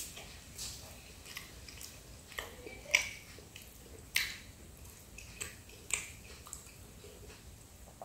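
Close-up chewing of a bite of Pizza Hut Melts, with sharp crunches of the crust every second or so.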